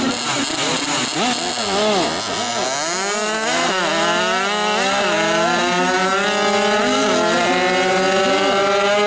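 Two racing two-stroke mopeds revving in rising and falling blips at the start line. About three seconds in they launch and accelerate hard, the engine pitch climbing with sudden dips at each gear change.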